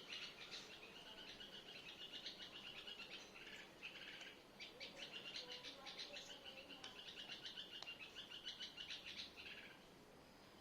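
Faint bird-like chirping: long trills of rapid high notes, with a short break about four seconds in.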